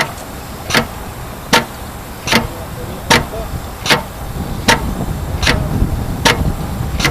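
Air-operated material pump clicking at each stroke change, about one click every 0.8 s, as it slowly recirculates the coating at low air pressure. A low rumble runs underneath and grows a little louder in the second half.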